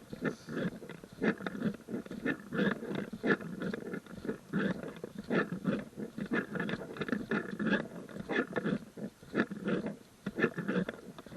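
Footsteps crunching on a gravel trail while walking, a quick uneven run of steps with rustling.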